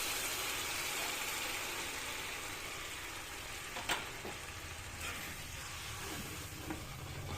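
Tomato puree sizzling in hot oil with fried onion in a pan, the hiss slowly dying down as the puree heats. A sharp knock of a spoon on the pan comes about four seconds in.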